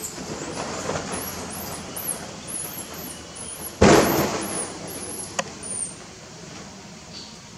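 A single sudden loud thump about four seconds in, fading over about a second, then a sharp click a second and a half later, over faint high chirps repeated until near the end.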